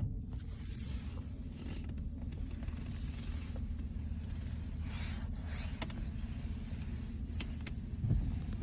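Sparse sharp clicks from under the steering column of a 2020 Chevrolet Tahoe, the last two close together near the end, over a steady low rumble. This is the clicking fault that shows up once the cabin has warmed up.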